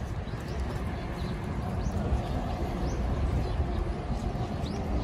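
Outdoor walking ambience: a steady low rumble with a faint murmur of people's voices and a few short, high bird chirps.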